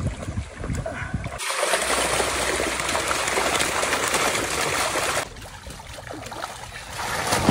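Water splashing hard as a mass of netted vaala fish thrash in shallow water, a dense continuous splashing. It drops abruptly to quieter water movement a little past halfway, then the splashing picks up again near the end.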